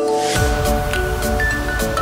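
Background music: a bell-like melody in which a short swoosh leads in, and bass and drums come in about half a second in.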